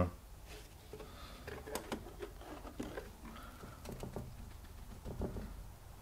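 Faint handling sounds: scattered light clicks and rustles of a plastic water bottle being handled and tipped over wet ceramic-fibre wool (Kaowool).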